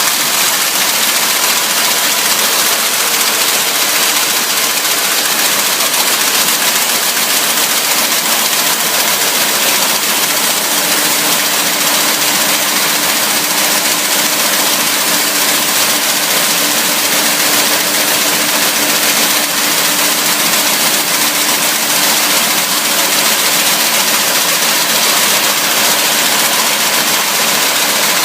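Automatic can-body welding machine, rated at 450 cans a minute, running continuously: a loud, steady, rapid mechanical clatter and hiss with a faint steady hum.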